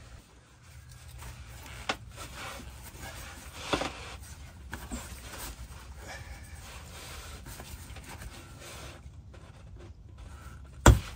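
Leather-gloved hand rubbing and scraping against a rubber factory bump stop and the van's frame while working it loose by hand, with a few small knocks and one sharp knock near the end.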